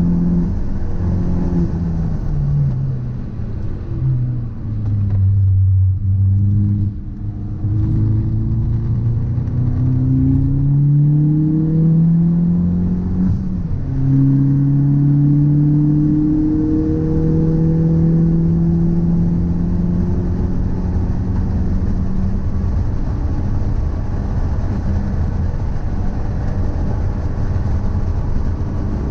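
Car driving with its engine note dropping, then rising under acceleration, a gear change about thirteen seconds in, then cruising at a steady pitch over constant low road rumble. The driver suspects an abnormal noise from a driveshaft or wheel hub.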